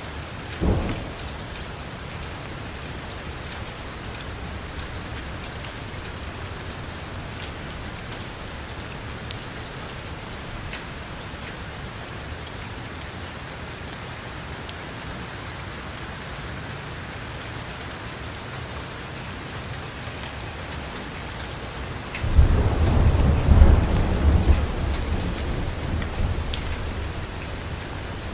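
Heavy rain falling steadily on a metal roof, with scattered drop ticks. A brief thunderclap comes under a second in, and a long, deep rolling rumble of thunder starts near the end and slowly fades.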